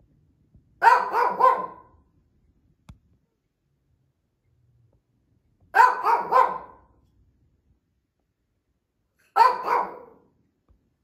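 Shih Tzu barking in three short bursts a few seconds apart, each burst about three quick, sharp barks in a row.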